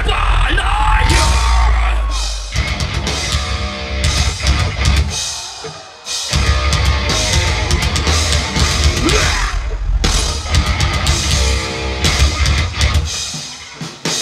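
Live rock band playing loud on stage: electric guitars, bass and drum kit. The music drops out briefly about six seconds in and again near the end.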